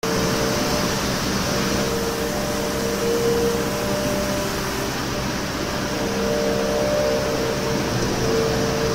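CNC milling machine cutting aluminium 6061 with an RDMT1604 indexable-insert cutter, spindle at 18,000 rpm: a steady machining noise of cutting and flying chips, with a few held tones.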